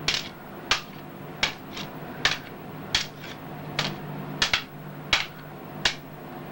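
Long wooden sticks clacking together in a mock sword fight: sharp wooden clacks about every three-quarters of a second, now and then two in quick succession, over a steady low hum.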